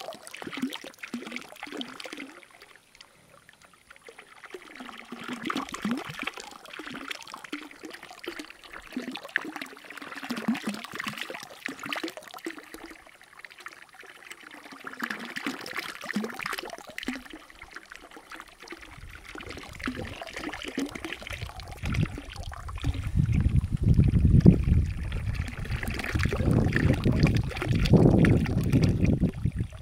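Water from a pipe spout pouring and splashing into a full concrete spring trough, with a steady trickle and gurgle. In the second half a low rumble comes in and becomes the loudest sound.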